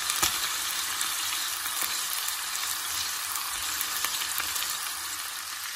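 Chicken pieces frying in melted butter with garlic, rosemary and sage: a steady, even sizzle, with a faint tap just after it begins.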